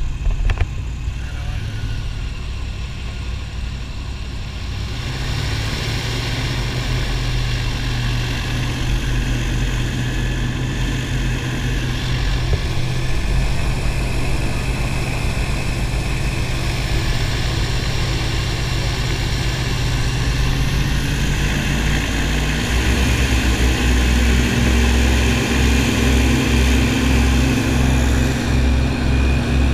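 Airboat's engine and large air propeller running steadily under way, growing louder about five seconds in and taking on a deeper, stronger pulsing note a little past twenty seconds.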